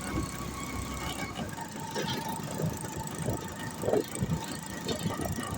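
Rickshaw riding along a road, heard from the passenger seat: the engine runs with a steady thin whine while the body rattles and knocks irregularly over the road surface.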